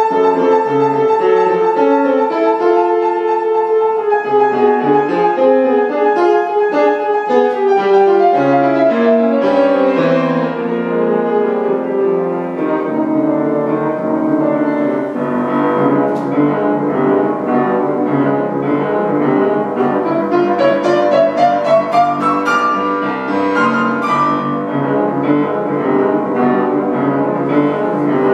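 Pfeiffer grand piano played solo in a classical piece: a held melody over moving notes, turning to faster, denser playing in the lower register about halfway through.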